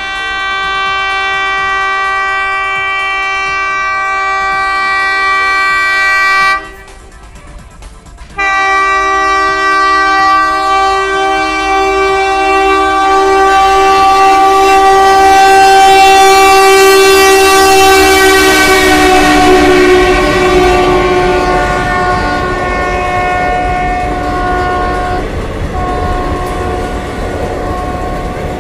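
Locomotive horn sounding two long blasts, the first about six seconds long, the second about sixteen, its pitch dropping as the train comes close and passes. Under and after the horn, the rumble and rail clatter of passenger coaches rolling past.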